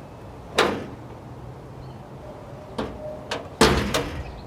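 A 1965 Ford Falcon door being swung shut onto its newly installed latch and striker: one slam about half a second in, then two lighter knocks and a louder slam near the end.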